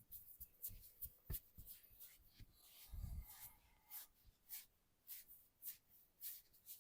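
Faint rubbing and brushing strokes of hands working over skin and hair in a massage, settling into about one stroke every half second in the second half, with a soft low thud about three seconds in.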